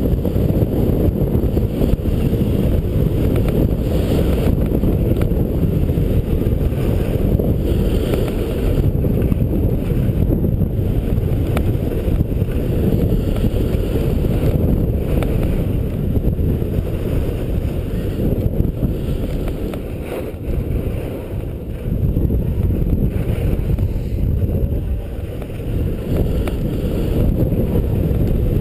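Wind rushing over the skier's camera microphone while skiing fast down a groomed slope: a loud, steady low rumble that eases briefly twice in the second half.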